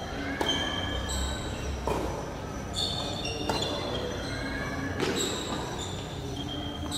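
Tennis ball being struck by rackets and bouncing on a hard court during a rally: a few sharp pops, about one every one to three seconds, each echoing in a large hall, with short high squeaks in between.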